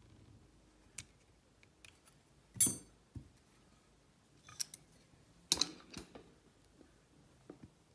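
Small metal clicks and clatter as steel lock tools and a Kwikset SmartKey lock cylinder are handled during disassembly, with two louder metallic clatters about two and a half and five and a half seconds in.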